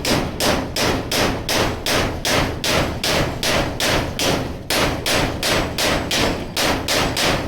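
Small ball peen hammer tapping a metal staple into a door to hold a gate hook, with quick, even blows about three a second.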